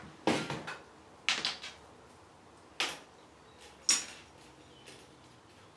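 Handling sounds from fishing tackle being picked up and sorted: four short knocks and rustles, the loudest a little before the end.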